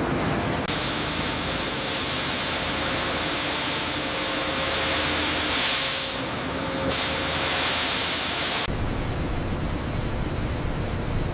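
Sawmill machinery running with a loud steady hiss that cuts in about a second in and stops abruptly near the end, leaving a lower rumble of machine noise.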